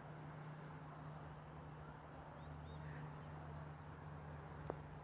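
Faint countryside ambience: distant birds chirping and insects calling, with short high chirps about once a second. A single sharp click near the end.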